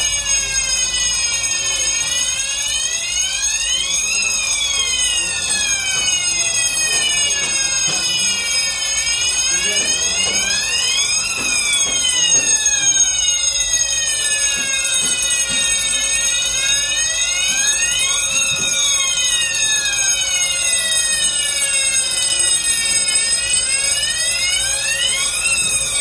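Electronic fire alarm sirens wailing in several overlapping, slow rising and falling sweeps, over steady high-pitched tones. The fire alarm has been set off in a system test.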